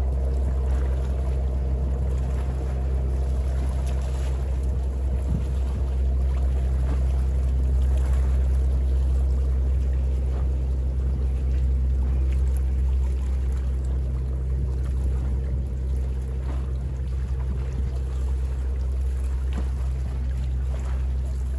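Boat engine running steadily with a constant low drone, over the light splash of small bay waves lapping.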